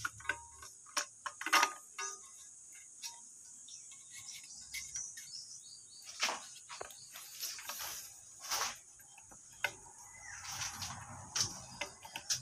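Plastic toilet-tank fittings being handled and adjusted inside a ceramic cistern: irregular clicks, knocks and scrapes of plastic against plastic and the tank wall, with several sharper knocks.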